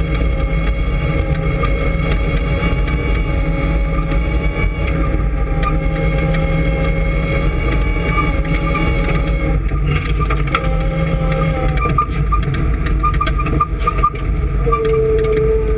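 An engine running steadily with a whine, its pitch stepping down about ten seconds in and again near the end, with scattered clicks and rattles in the second half.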